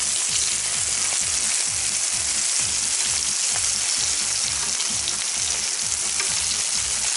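Flour-dredged herring pieces frying in sunflower oil in a nonstick pan: a steady sizzle, with faint clicks of forks against the fish and pan as the pieces are turned.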